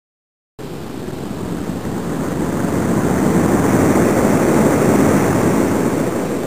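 Loud rushing noise of wind and road, as heard from inside a moving car, cutting in suddenly about half a second in, swelling to its loudest around four to five seconds in and easing a little.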